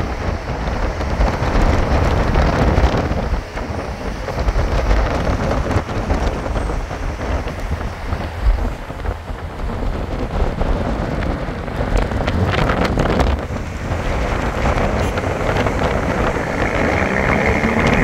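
Wind rushing over the microphone with road noise from a car driving along a highway, a steady loud rush with a heavy low rumble. Near the end a higher steady drone joins in.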